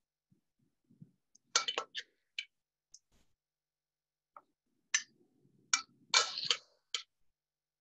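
Metal tongs clinking and clicking against a stainless steel mixing bowl while dressed salad is lifted out onto a plate. The sharp clinks come in two clusters, one about a second and a half in and a busier one from about five seconds in, with soft rustling of leaves between strikes.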